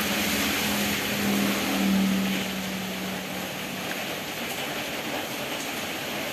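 Steady hiss of rain, with a low, steady hum through the first three seconds.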